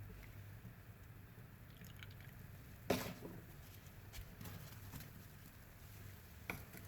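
Faint drips and squishes from a wet, soapy sponge, with two sharp clicks, one about three seconds in and a weaker one near the end.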